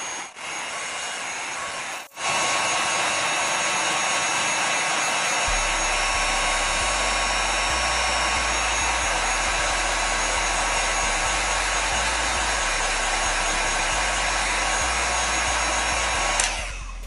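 Handheld electric heat gun blowing steadily while softening an action figure's plastic joints. It gets louder about two seconds in and is switched off near the end.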